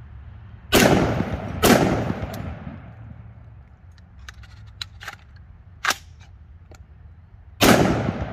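Ruger SFAR 7.62x51 (.308) semi-automatic rifle fired twice about a second apart, each shot echoing away. This is followed by several light metallic clicks as the action is worked, then one more shot near the end. The rifle is short-cycling with repeated failures to feed and a bolt-over-bullet jam.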